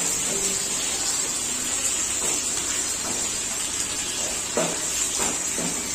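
Sliced onions and green chillies sizzling steadily in hot oil in a frying pan, stirred with a wooden spoon.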